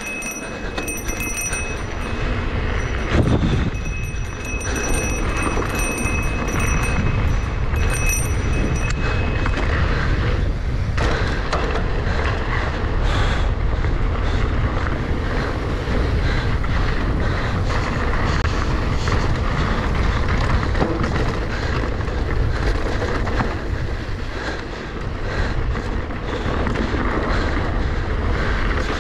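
Mountain bike running fast down a rough downhill trail: a continuous rattling, rushing noise with no let-up, and a thin high ringing tone that comes and goes during the first nine seconds or so.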